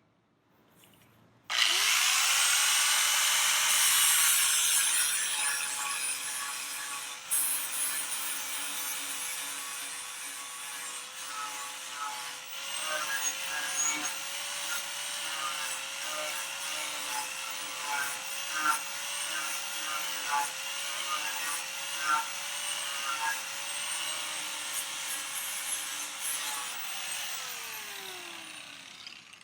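Angle grinder spinning up about a second and a half in and grinding the edge of a steel lawnmower blade to sharpen it, the motor's pitch wavering as the disc bears on the blade. It is loudest at first and winds down with falling pitch near the end.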